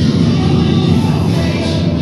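Recorded dance music played loudly through a loudspeaker system, running without a break.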